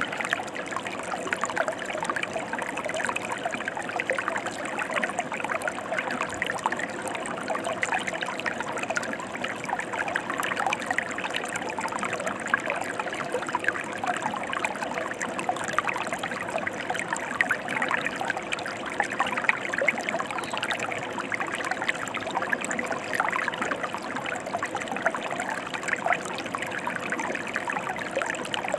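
Mountain river water rushing and babbling over rocks, a steady dense splashing that keeps the same level throughout.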